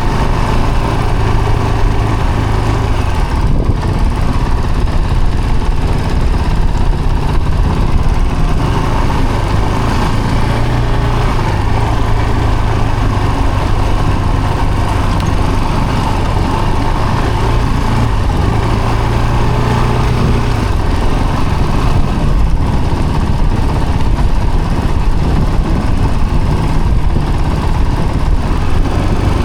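Vehicle engine running steadily at low revs, with a constant hum and slight shifts in pitch, over continuous rumbling noise.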